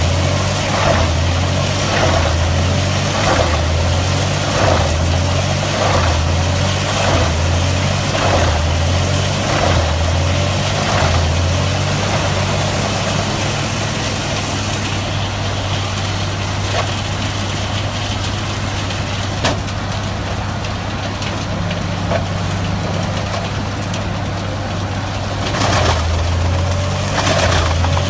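Heavy machine's engine running under a rhythmic load, its low note pulsing a little under once a second with a burst of clatter at each pulse, then holding steady for about twelve seconds before the pulsing returns near the end.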